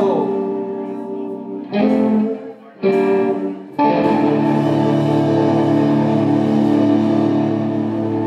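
Live rock band's electric guitars and bass: a held chord fades out, two short chord hits land about a second apart around two seconds in, then a loud sustained chord rings from about four seconds on.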